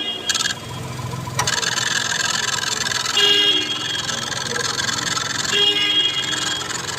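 Mahindra XUV300 engine running with the AC switched on, its accessory-belt tensioner making a steady rasping, rubbing noise: the tensioner fault being demonstrated. A high-pitched whine comes and goes about every two and a half seconds, and there is a single click about a second and a half in.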